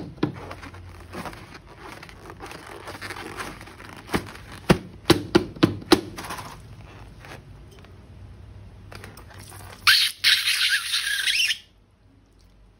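Rubber balloons being handled and squeezed, squeaking, with scattered sharp clicks. Near the end comes a loud hissing squeal of about a second and a half, which then cuts off.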